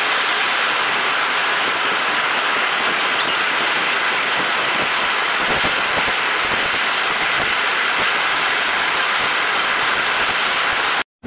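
Steady, loud rush of falling water from a waterfall, an even hiss without rhythm that breaks off for a moment near the end.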